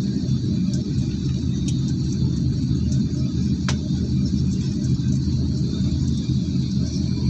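Steady low rumble and hum of an airliner cabin's machinery after landing, with a single sharp click about three and a half seconds in.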